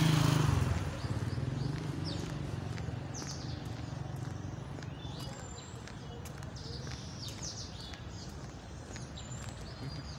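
A motorcycle engine passing close and fading away within the first second, then birds chirping repeatedly in short high calls over a steady low background rumble.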